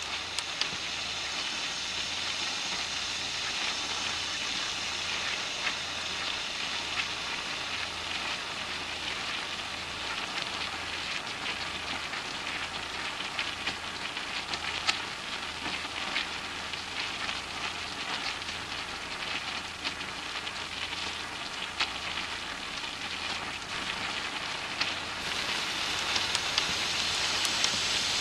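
Food frying in hot oil: a steady sizzle with frequent sharp pops and crackles, growing a little louder and brighter near the end.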